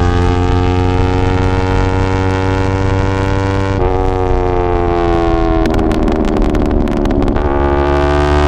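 2023 Yamaha R3's parallel-twin engine through an Akrapovic full-system exhaust, its note rising slowly, dipping about four seconds in, then breaking into a stretch of rapid crackles and pops from the burble tune before settling back to a steady note.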